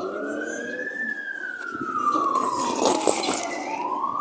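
An emergency vehicle's wailing siren, its pitch slowly rising to a peak about a second in, falling for the next two seconds, then rising again near the end. A short burst of hiss comes about three seconds in.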